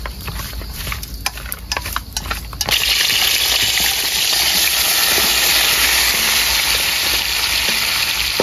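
A utensil scraping and clicking against a steel bowl as seasoned duck meat and gizzards are mixed, then, under three seconds in, a sudden loud, steady sizzle as the meat is tipped into hot oil in a steel wok to stir-fry.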